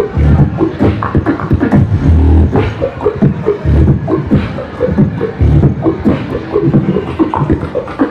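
Solo beatbox routine performed into a cupped handheld microphone: a fast run of sharp clicks and snare sounds over deep held bass sounds that come back every couple of seconds.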